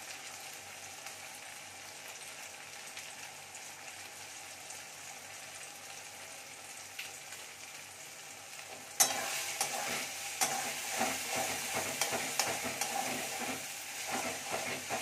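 Onion, chilli and tomato masala sizzling steadily in a metal kadai. About nine seconds in, a metal spatula starts stirring, and the sizzle gets louder with repeated scrapes and knocks of the spatula against the pan.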